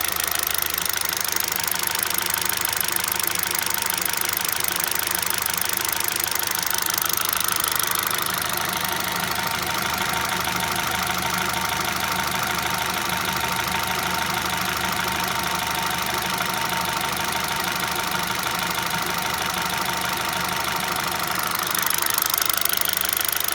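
Kia Rio engine running steadily with a rapid knock coming from inside the engine while it runs.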